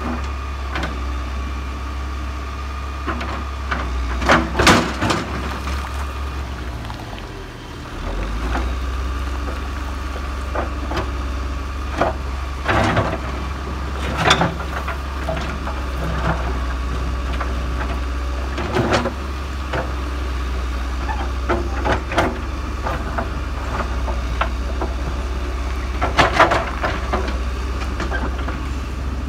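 Case hydraulic excavator digging rocky soil: a steady low diesel engine drone, with sharp scrapes and clunks of stones against the steel bucket, loudest about five seconds in, around thirteen to fourteen seconds, and near the end.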